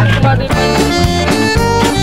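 Background music: an instrumental piece of held melodic notes over a steady beat.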